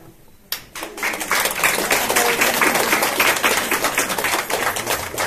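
Audience applauding: a burst of clapping that starts suddenly about half a second in and carries on steadily.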